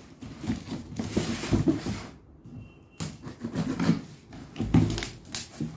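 Hands opening a taped cardboard shipping box: scratching and tearing at the packing tape, with rustles and knocks of the cardboard and a short pause a little past two seconds in.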